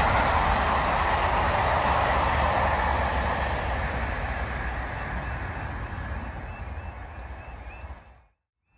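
Steam-hauled train, the Peppercorn A2 Pacific 60532 Blue Peter, running past and away, its rail and running noise fading steadily over several seconds, then cutting off abruptly near the end.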